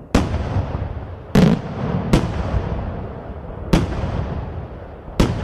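Aerial firework shells bursting: five sharp booms a second or so apart, the second the loudest, each trailing off in an echoing rumble.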